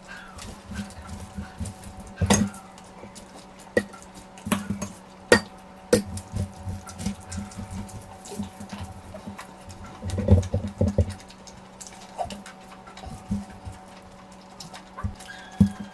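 Close-miked eating sounds of curry and rice: irregular wet smacks, clicks and chewing, with a denser run of smacks about two-thirds of the way through, over a steady low hum.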